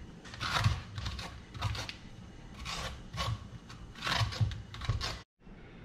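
A metal spoon scraping seeds and stringy pulp out of a halved raw spaghetti squash, in a series of short scrapes about one every half second to a second. The sound cuts out briefly about five seconds in.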